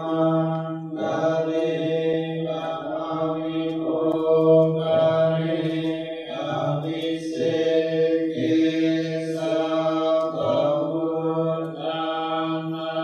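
Theravada Buddhist monks chanting Pali blessing verses in unison on one steady low pitch, with short pauses for breath every few seconds.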